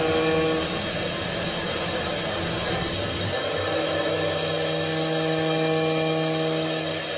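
Mazak Variaxis i-800T five-axis machining centre milling a large metal gear with an end mill: a steady hissing cutting noise over a machine hum, whose tone shifts about three seconds in.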